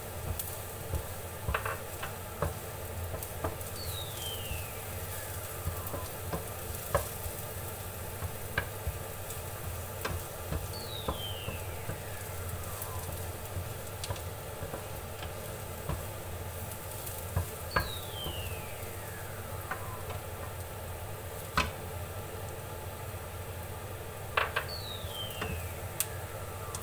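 Minced garlic sizzling in a little oil in a non-stick frying pan, stirred with a wooden spatula that scrapes and taps against the pan at irregular moments.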